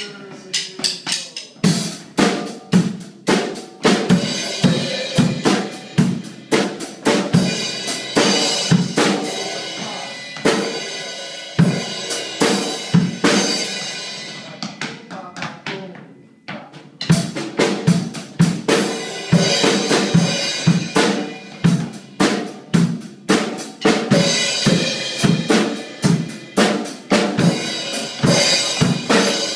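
Acoustic drum kit played in a steady groove: bass drum and snare strokes with cymbals over them. The playing stops for about a second just past halfway, then the groove starts again.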